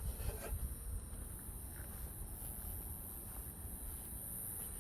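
Steady, high-pitched insect chirring over a faint low rumble, with a brief faint knock about a quarter second in.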